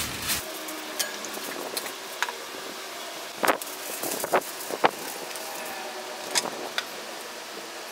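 Hands mixing dough in a stainless steel bowl: scattered taps and clinks of fingers and the bowl, over a steady background hiss.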